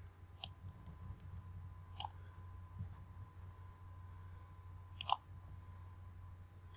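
A few short, sharp clicks: one about half a second in, one about two seconds in, and a quick double click about five seconds in, over a low steady hum.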